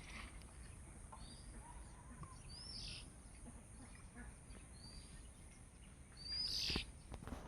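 A bird calling: short high arched notes repeated every one and a half to two seconds, over a faint low rumble.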